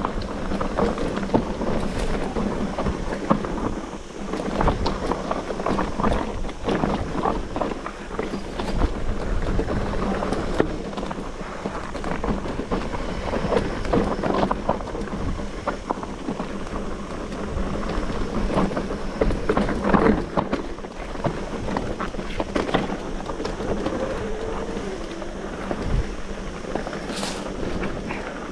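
Electric mountain bike riding down a rocky trail: tyres crunching over loose stones and the frame and components rattling with constant small knocks, with wind on the microphone. A heavier thump comes near the end.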